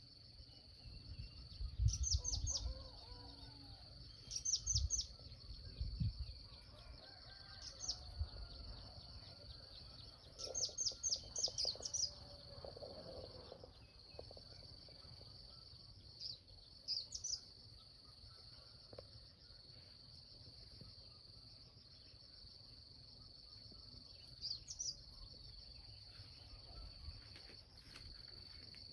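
Rural morning ambience: a steady high-pitched drone of insects such as crickets, with short bursts of quick bird chirps repeating every few seconds, busiest in the first half.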